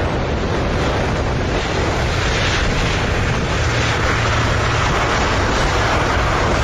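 Boeing 777's jet engines in reverse thrust during the landing roll on a wet runway: a loud, steady rush, with wind on the microphone.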